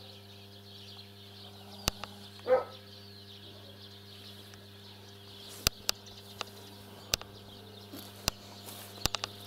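A steady low hum with a few sharp clicks, and one short animal call about two and a half seconds in.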